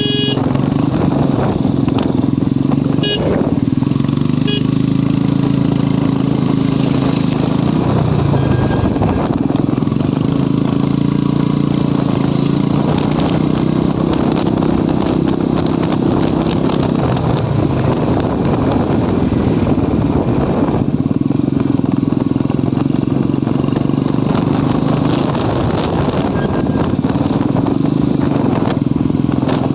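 Motorcycle engine running while the bike is ridden along a road. Its note rises and falls several times over a steady rush of road and wind noise.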